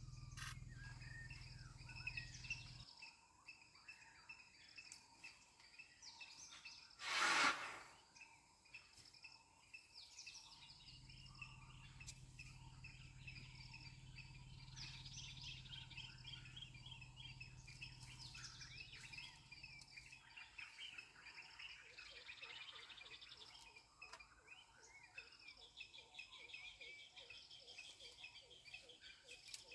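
Wild birds chirping and calling, with insects trilling, over a faint low hum that comes and goes. A single brief loud rushing noise comes about seven seconds in.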